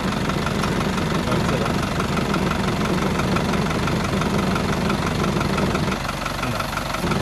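Chevrolet Tavera's engine idling steadily with a faint even ticking, running so that its alternator-driven vacuum pump can be checked at the booster hose; the pump is delivering correct vacuum.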